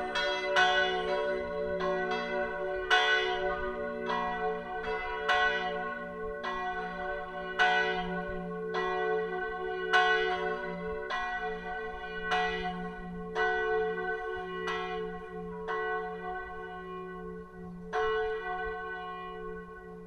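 Full peal of three swinging church bells tuned F♯, B and D♯ (cast 1582, 1604 and 1947), their strokes overlapping irregularly over a steady hum. The strokes gradually get quieter.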